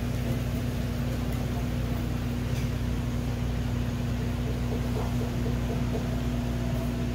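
1988 Isuzu Gemini's engine running steadily, a constant low hum with one steady tone.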